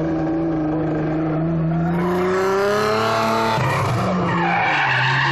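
Drift car's engine revving hard, its pitch climbing for about three and a half seconds and then dropping. Tyres squeal as the car slides sideways through a hairpin near the end.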